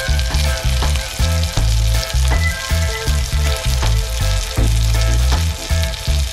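Kahawai fillets, dusted in flour, sizzling and crackling as they shallow-fry in bubbling butter. Background music with a rhythmic bass line plays underneath.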